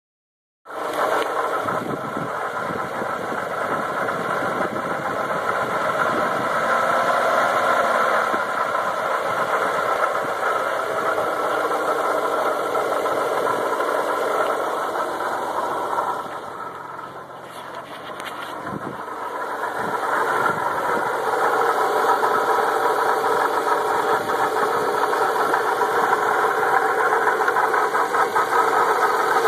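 Audi S4 engine running, with a steady mechanical noise from the engine bay that the owner suspects is a bad pulley bearing, possibly a camshaft, crankshaft or turbo bearing. It goes quieter for a few seconds a little past the middle, then grows louder again.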